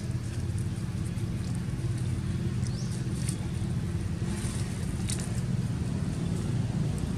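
Steady low hum of an idling engine, with light crackles and one short, high, rising chirp about three seconds in.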